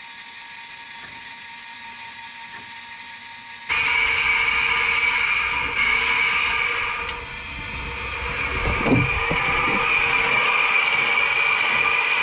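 Electric Eel drum drain machine running, its electric motor spinning the drum and the cable that feeds into a cast-iron sewer cleanout: a steady motor whine with cable rattle. About four seconds in the sound jumps louder and changes tone, and a brief knock comes near the ninth second.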